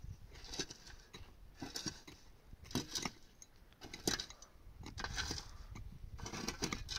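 Metal shovel scraping and scooping dry earth and gravel in short gritty strokes, about one a second.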